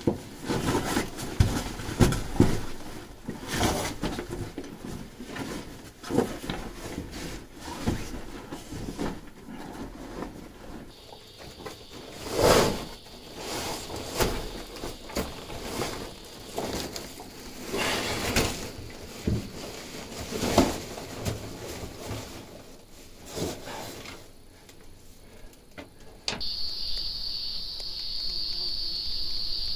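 Irregular scuffing, scraping and knocking of boots, hands and a backpack against sandstone as people scramble through a narrow rock passage. Near the end a steady, high-pitched insect chorus cuts in suddenly.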